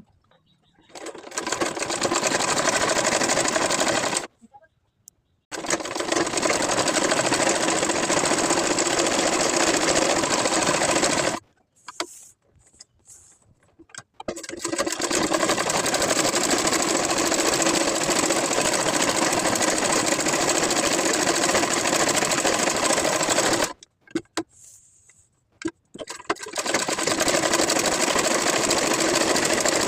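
Sewing machine stitching in four runs of several seconds each, with short stops between them.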